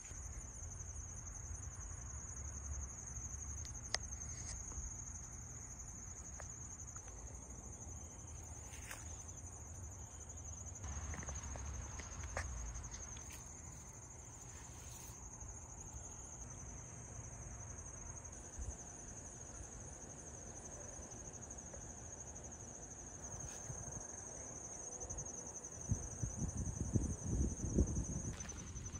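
Insects trilling steadily in one continuous high-pitched trill. Near the end comes a short run of close clicks and thumps.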